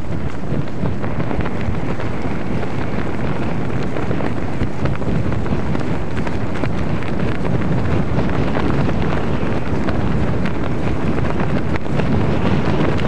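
Steady, loud wind buffeting the microphone, a continuous rumbling rush with no distinct events.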